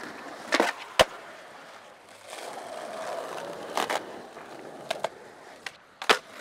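Skateboard wheels rolling over pavement, with several sharp clacks of the board striking the ground. The loudest clack comes about six seconds in, as the board is snapped into a flip trick.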